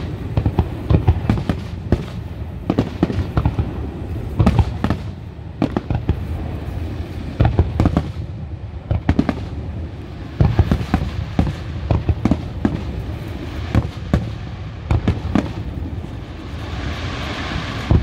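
Fireworks display: aerial shells bursting one after another in a dense run of sharp bangs over a steady low rumble, with a stretch of hiss rising near the end.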